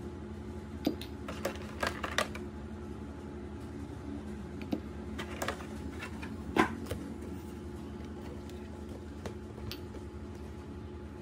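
Miniature glass whisky bottles and a plastic insert tray handled on a glass tabletop: scattered light clinks and taps, the loudest about six and a half seconds in, over a steady low hum.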